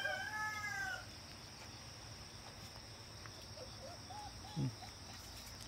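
The tail of a rooster's crow, falling and fading out within the first second, over a steady high chirring of insects. A few faint short squeaks come near four seconds in.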